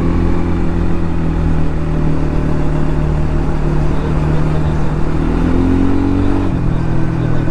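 Sport quad's engine running steadily under the rider at town cruising speed, heard from on board; its pitch rises a little about five seconds in and drops back about a second later.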